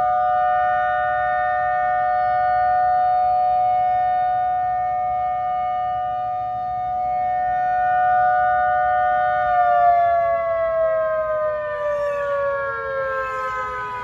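Outdoor tornado warning siren on test, sounding a steady two-tone wail that then winds down with a steadily falling pitch about nine and a half seconds in.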